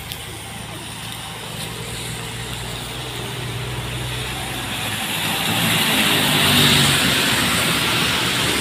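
Motor vehicle engine running, with tyres hissing on wet asphalt. The hiss swells to its loudest about six to seven seconds in as the vehicle comes close, then eases off.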